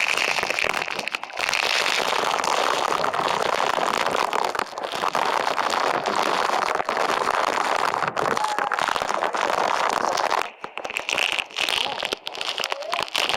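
Waterfall rushing steadily, with crackling from spray striking the camera's microphone. About ten seconds in the rush drops back and the crackling stands out more.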